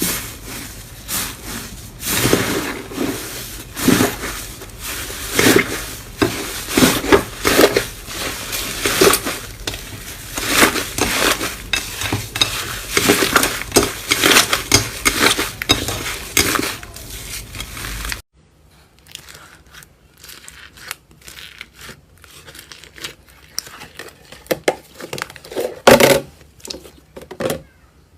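Slime being pressed and squished by hand, giving dense crackling, clicking and popping. About two-thirds of the way through the sound cuts abruptly to a much quieter stretch of sparser clicks and pops.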